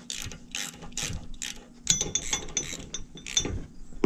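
Hand socket ratchet clicking in repeated strokes as bolts are turned out to remove a pickup's tow hooks, with a few ringing metal clinks about halfway through.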